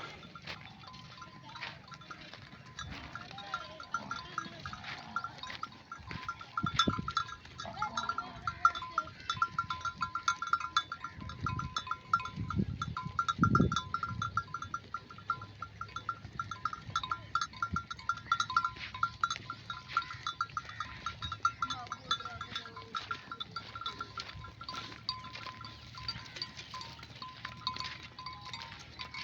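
Many sheep bells clinking and tinkling without a break as a flock grazes, with a few sheep bleats, the loudest around the middle.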